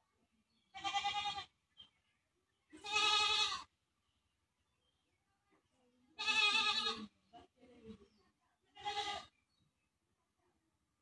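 An animal calling four times, a few seconds apart, each call a wavering, pitched cry lasting from half a second to about a second.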